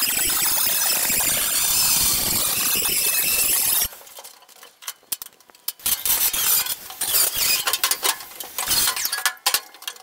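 4-inch angle grinder with a metal cutting wheel cutting through the mild steel cabin top, a loud steady grind that stops abruptly about four seconds in. It is followed by irregular metallic clinks and knocks.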